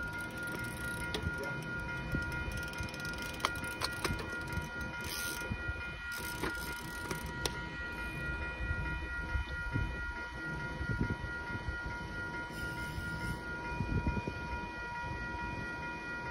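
Railroad grade-crossing warning bell ringing continuously while the crossing signals flash and the gates are down, over a low rumble.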